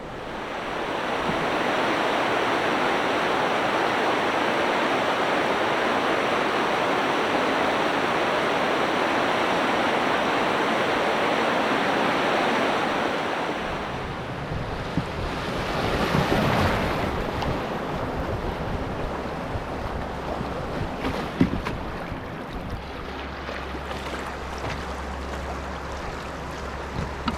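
Rushing water of a small class I river rapid, a loud steady rush. It eases off about halfway through into a gentler wash with a few sharp knocks.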